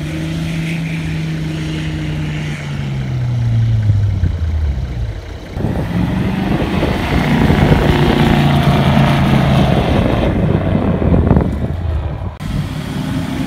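Toyota LandCruiser four-wheel drives' engines working through soft beach sand. For the first few seconds one engine's note falls steadily. After a short dip a louder engine runs hard under load, then cuts off suddenly near the end.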